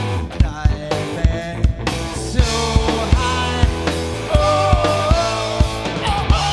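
Rock band playing a song live: a steady drum beat over bass and electric guitar. A held lead melody line comes in a little past the middle.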